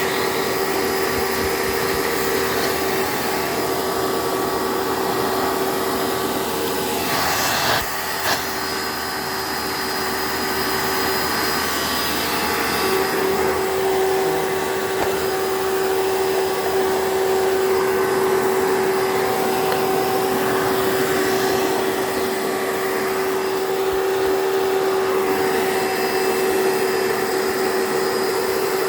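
Hoover PowerMax 2 upright vacuum running steadily, its motor giving a high, even whine. There are two brief knocks about eight seconds in. The motor runs a little noisier than the owner expected, enough that he is thinking of replacing it.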